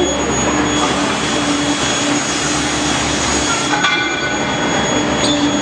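Induction forging furnace line running: loud, steady machine noise with a thin, steady high whine over it. Part of the low rumble eases about two-thirds of the way in, and there is a small click near the end.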